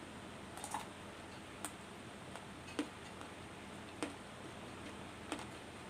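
Close-up chewing of raw leunca (black nightshade) berries: five separate crisp crunches or pops, about one a second.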